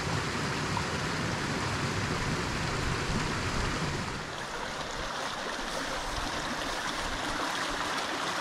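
Small mountain creek running over rocks: a steady rush of water, with a low rumble that thins out about four seconds in.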